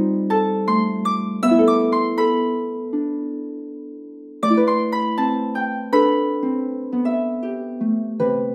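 Medieval harp playing plucked notes and chords that ring and fade. The notes die away in a lull about three to four seconds in, and then the playing picks up again.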